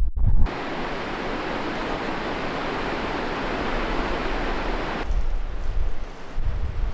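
Steady rush of flowing river water. Near the five-second mark it cuts to a quieter, duller water sound with low wind rumble on the microphone.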